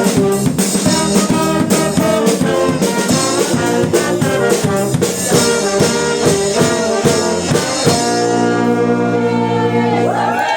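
Live brass band with drums playing an upbeat tune on trombones and trumpets, with a steady beat. About eight seconds in, the drums stop and the band holds a long final chord.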